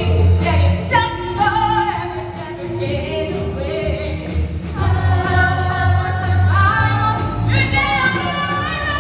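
A group of voices singing a musical-theatre number over a recorded backing track with a pulsing bass beat. The second half has long held notes that step up in pitch near the end.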